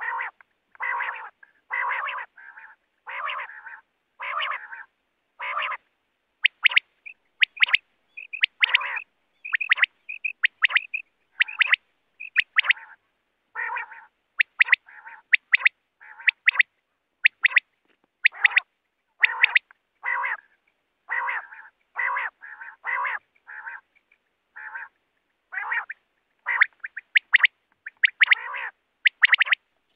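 A quail calling over and over: short raspy notes about once a second, mixed with quick sharp high chirps.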